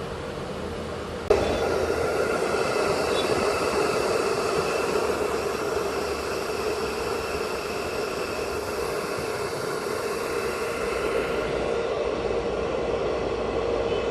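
Small computer cooling fan running with a steady whir and hum. It jumps suddenly louder a little over a second in.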